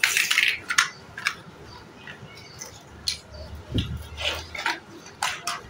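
Large hard-plastic building blocks clattering against each other as a hand rummages through a pile of them: a burst of clacking at the start, then scattered single clicks, with a dull thump just before four seconds in.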